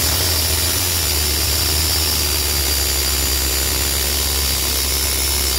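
Pneumatic air hammer firing continuously in one steady, loud, high-pitched buzz, driving a bolt against the crankshaft end to shake a rusted-on pulley loose; the pulley is not moving.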